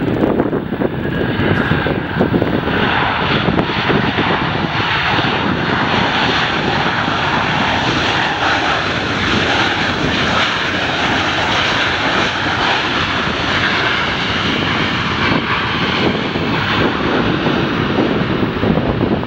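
Jet airliner's engines passing close by: a loud, steady rushing noise that grows fullest in the middle and eases toward the end.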